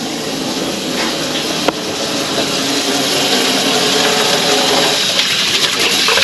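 Water running from a tap and splashing over hands being washed, with two short knocks about one and two seconds in.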